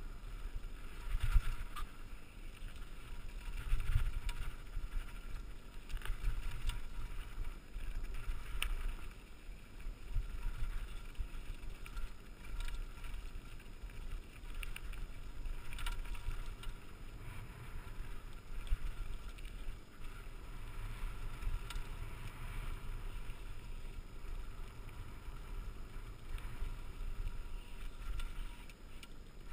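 Mountain bike riding fast down a rocky dirt singletrack: a rough, uneven rumble of tyres and wind on the helmet camera's microphone, with the bike rattling and a few sharper knocks as it hits rocks.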